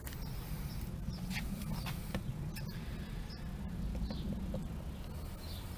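Outdoor background: a steady low rumble of wind on the microphone with faint, scattered short bird chirps.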